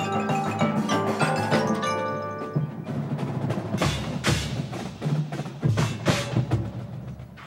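Drum and bugle corps percussion playing: mallet keyboards ring out a quick run of pitched notes, then from about three seconds in the playing thins to a few loud, sharp percussion strikes, the loudest near four and six seconds.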